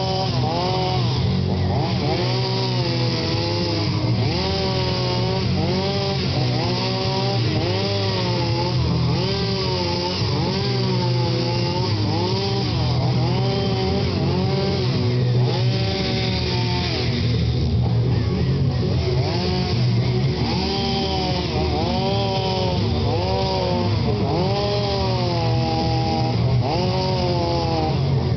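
Two-stroke chainsaw carving wood, its engine pitch rising and falling about once a second as the throttle is worked through the cuts.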